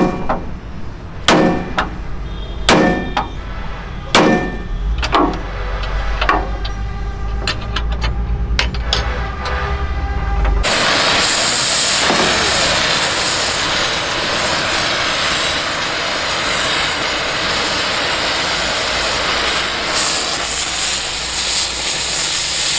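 Hammer blows on a hot rivet in a steel truck chassis frame: four ringing clangs about a second and a half apart, then lighter, quicker taps. About ten seconds in, this gives way suddenly to the steady hiss of a gas cutting torch burning through the rivet heads.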